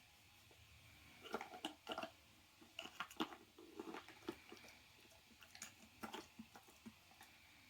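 Malamute crunching and chewing treats, a run of irregular faint crunches that thin out near the end.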